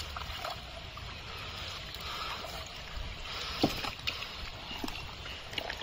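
Shallow muddy pond water sloshing and splashing as a person wades and gropes through the mud by hand, with a couple of short sharp splashes about three and a half and five seconds in.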